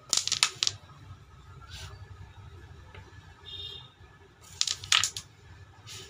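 Carrom striker flicked into Siscaa Sure Slam carrom coins: a quick run of sharp clicks and clacks as the striker and coins knock together and off the board's frame. It happens twice, right at the start and again about four and a half seconds in, with a faint single click in between.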